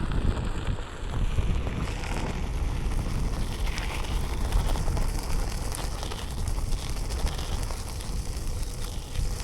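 Wind buffeting the microphone during a Onewheel ride: a steady, loud, rumbling rush of noise.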